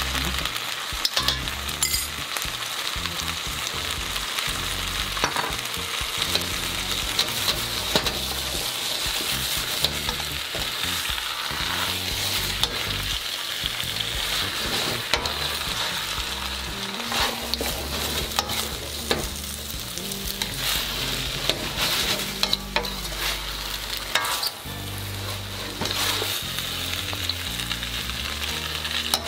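Spaghetti, chicken and sauce sizzling in a hot steel wok while a metal ladle stirs and tosses it, with frequent clinks and scrapes of the ladle against the wok. The sauce is cooking down and thickening.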